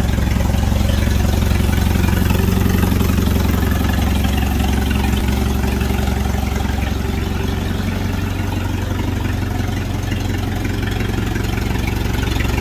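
McCormick International AW6 tractor's four-cylinder kerosene engine idling steadily.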